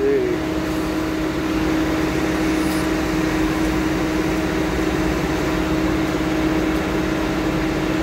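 A machine's engine running steadily with a cab fan or air-conditioning blower, an even hum holding one tone over a low drone, without any change in speed.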